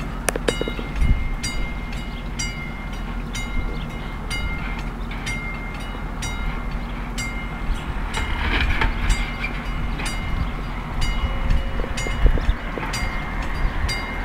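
Level-crossing warning bell, the classic mechanical bell on AŽD 71 crossing signals, ringing in even repeated strokes about three every two seconds. Each stroke leaves a ringing tone.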